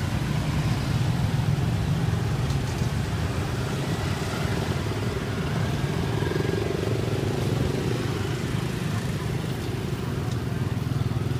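Steady street traffic: motor vehicle engines, including motorbikes, running past in a continuous low rumble.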